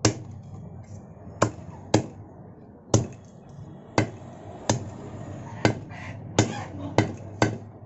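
A heavy cleaver chops a whole chicken into pieces on a wooden chopping block, striking through meat and bone. There are about ten sharp chops at uneven intervals.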